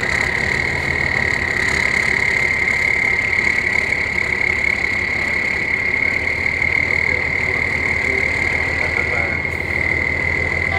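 Truck-trial truck's engine labouring at low revs as the truck crawls over rough ground, a low pulsing rumble with a steady high whine held over it.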